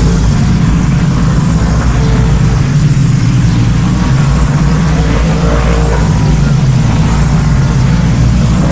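Tyco slot cars running laps on a plastic oval track: a loud, steady electric-motor whir with a low hum and the rattle of the cars in the track slots.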